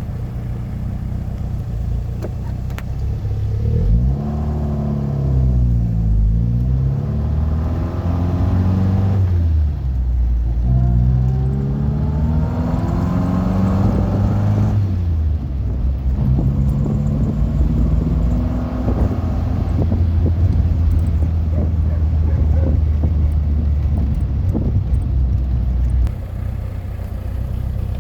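Triumph Spitfire 1500's four-cylinder engine idling, then revved up and let fall several times from about four seconds in. It is held at higher revs for several seconds and drops back to idle near the end.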